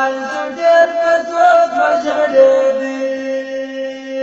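A voice chanting a Pashto devotional poem in long held notes, dying away near the end.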